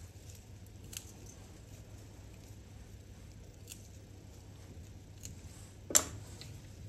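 A knife cutting through flat-leaf parsley stems held in the hand: a few faint, separate snips. Near the end comes one sharp knock, the loudest sound.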